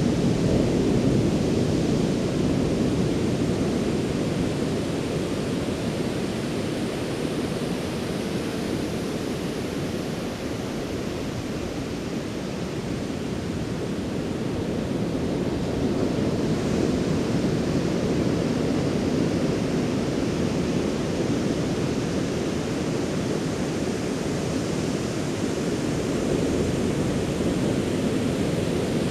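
Ocean surf breaking along the beach: a continuous low wash that slowly swells and eases, dipping a little around the middle and building again after that.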